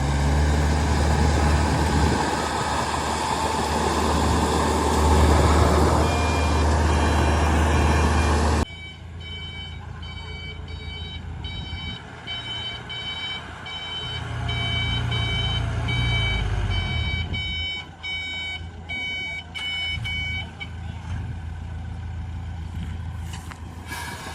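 Heavy diesel engine running loud, then cutting abruptly to a quieter engine under a reversing alarm beeping steadily, about one beep every second, which stops a few seconds before the end.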